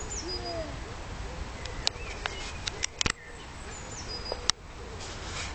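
Outdoor park ambience recorded on a phone: a steady low rumble, a few faint high bird calls, and several sharp clicks and knocks around the middle.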